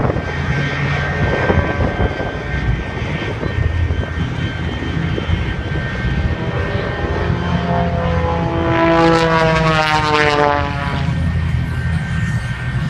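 Propeller airplane flying past: its engine drone swells, loudest about nine seconds in, and its pitch drops as it goes by.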